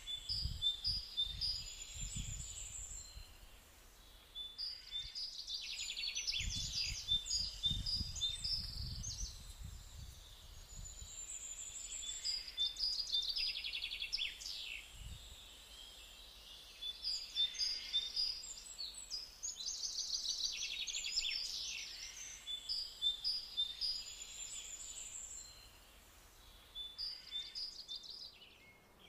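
Songbirds singing in the trees: bursts of high trills and repeated chirps every few seconds, several birds overlapping. Irregular low rumbles in the first ten seconds or so.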